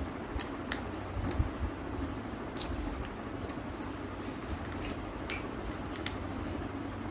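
Crisp pani puri shell crackling in small scattered clicks as fingers break a hole in it, over a low steady hum.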